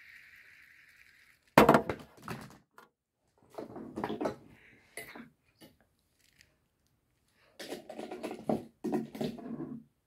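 Plastic fidget spinner whirring as it spins down, fading out after about a second and a half. Then a sharp knock, the loudest sound, followed by bursts of clicking and clattering as fidget toys are handled.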